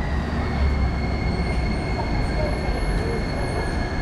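Copenhagen driverless metro train pulling into the station: a steady low rumble with a thin, high-pitched whine held throughout.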